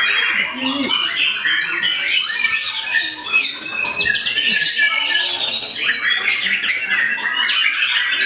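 Many caged songbirds singing at once in competition, a dense, loud tangle of overlapping chirps, trills and whistles.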